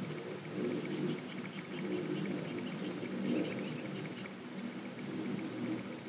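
Small birds chirping in short, repeated high notes over a steady low rumble.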